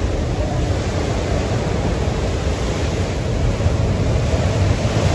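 Sea surf breaking on the rocks, a steady loud rushing wash of waves.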